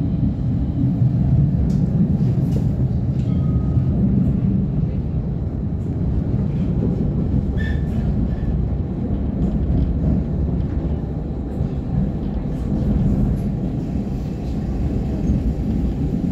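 Bombardier Incentro low-floor tram heard from on board while running along the track: a steady, continuous rumble of wheels and running gear, with a few faint clicks.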